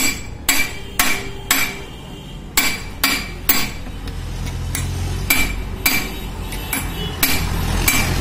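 Sharp metal-on-metal taps of a steel open-end spanner on the ends of gearbox shafts, about two a second, each with a short ring. The taps are louder in the first half and lighter later.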